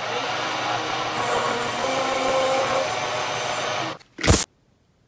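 Milling machine with a high-speed steel shell mill facing a block of PEEK plastic: a steady cutting noise as the sharp cutter chews through the plastic and throws off chips. About four seconds in, the cutting stops and there is a brief, very loud burst, after which the sound drops out.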